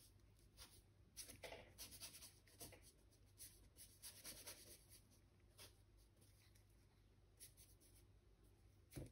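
Faint scratching of a paintbrush working oil paint onto a canvas, in short irregular strokes, mostly in the first half, with a brief light knock near the end.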